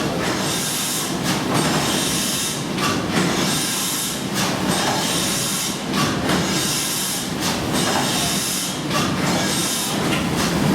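Escher Wyss two-cylinder compound steam engine of the paddle steamer Blümlisalp running steadily, with a clattering mechanical beat and a hiss of steam that swells and fades about once every second and a half, in time with the engine's strokes.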